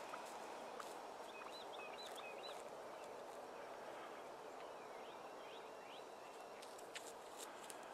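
Quiet open-field ambience with a small songbird singing two short phrases of quick, high notes, about a second and a half in and again near the middle. A few faint clicks come near the end.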